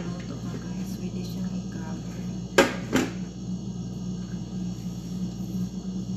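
Glass lid of a Kenwood electric grill being set down on the grill base: two sharp clinks about half a second apart, the first louder, over a steady low hum.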